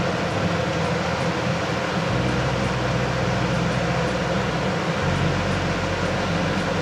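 Steady machine hum with an airy hiss, unchanging throughout.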